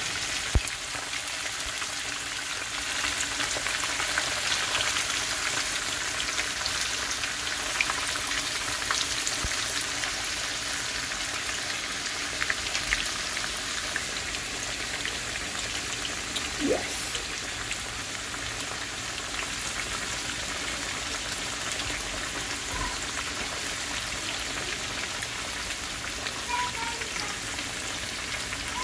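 Kingfish steaks deep-frying in hot oil in a skillet: a steady sizzle with fine crackling.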